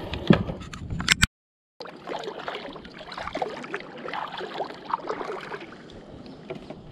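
Knocks and clicks of gear being handled in a plastic fishing kayak. After a short break, a kayak is paddled: water splashing and sloshing against the paddle and hull, with small taps.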